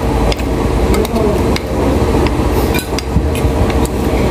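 Metal cutlery clinking and scraping against a ceramic plate while eating, several irregular clicks, over a steady low background rumble.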